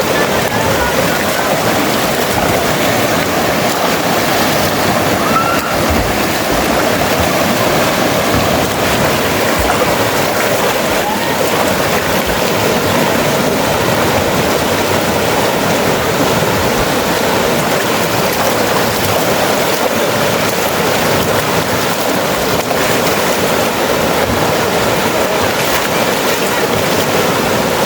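River water rushing steadily and loudly, close to the microphone.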